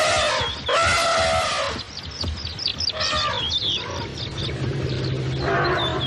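Elephant calls: two long calls in the first two seconds, a shorter one around three seconds in and another near the end, with birds chirping throughout and a low steady hum in the second half.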